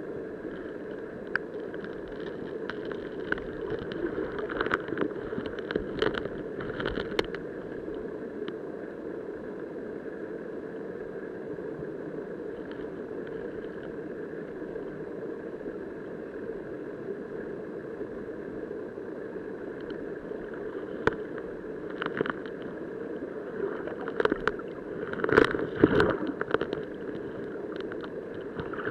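River current heard underwater through a submerged camera: a steady rushing hum, with scattered sharp clicks and knocks a few seconds in and a louder cluster of them near the end.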